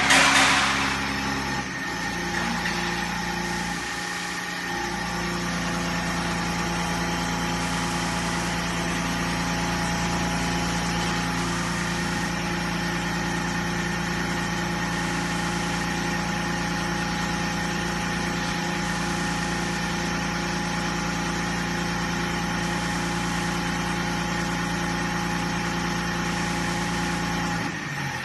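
Diesel injection test bench driving a common-rail high-pressure pump: a steady mechanical hum as the pump is run through its load test points. The tone shifts within the first few seconds, then drops near the end as the bench steps down to its idle test speed.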